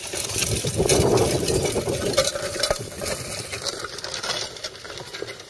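Mule-drawn disc harrow working the ground: a crunching, crackling scrape of the steel disc blades through soil, with chains and harness rattling. It is loudest in the first three seconds and then eases off.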